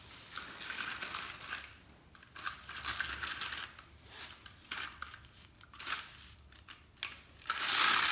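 Plastic clattering and rustling from toy cars being pushed over a flexible snap-together plastic racetrack, with the track pieces shifting, in irregular bursts and a few sharp clicks.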